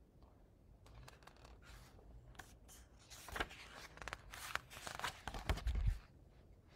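Pages of a hardcover picture book rustling and flapping as they are turned, with a few low bumps near the end.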